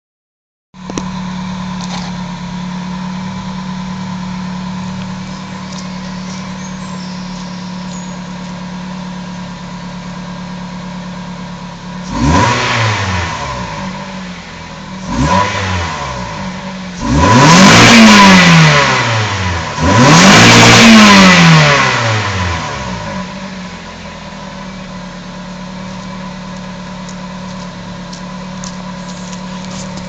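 Toyota Celica 1.8 VVT-i four-cylinder engine heard at the stock exhaust, idling steadily, then revved. It gives two short blips about halfway through, then two longer, louder revs that climb high and fall back to idle.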